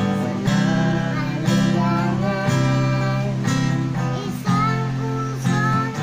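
Acoustic guitar strummed in a steady rhythm, with a chord accent about once a second, and a girl's singing voice over it.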